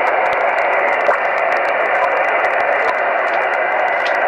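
Icom IC-7000 transceiver on 27.555 MHz upper sideband, its speaker giving a steady, thin hiss of static with no station coming through, and a few faint ticks.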